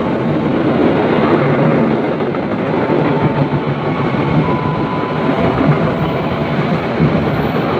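Passenger coaches of a Kereta Api Indonesia train rolling past on the near track: steady, loud wheel-on-rail noise with no break.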